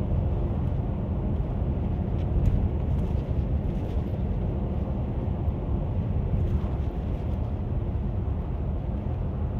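Steady low road rumble inside a moving car, with no change in level.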